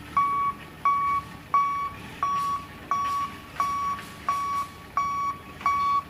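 Forklift reversing alarm: a single-pitched electronic beep repeating evenly, about three beeps every two seconds.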